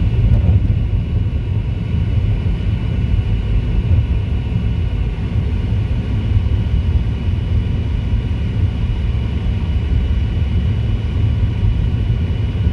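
Car tyres rumbling on old, rough pavement, heard from inside the moving car as a steady, loud low road noise.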